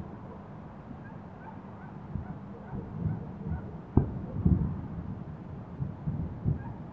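Distant ammunition-depot explosions: a low continuous rumble, then a sharp bang about four seconds in, followed by several rolling booms.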